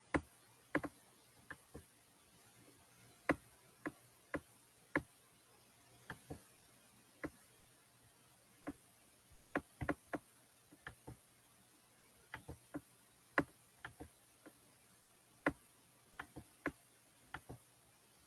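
Faint, scattered clicks and taps at irregular intervals, a few each second at most, over a quiet steady background.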